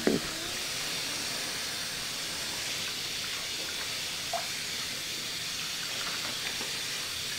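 Bathroom faucet running steadily into a filling sink, a constant hiss of water. A brief knock right at the start.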